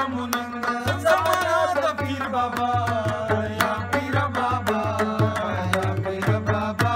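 Pashto qawwali singing with a wavering melody, accompanied by quick hand-struck percussion on a clay pot drum (mangay) and a tin can.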